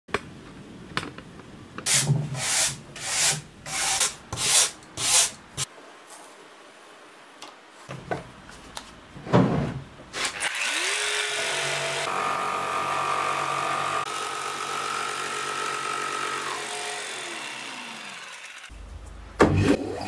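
About six short noisy strokes, then an electric power tool's motor spins up, runs steadily for about six seconds and winds down to a stop.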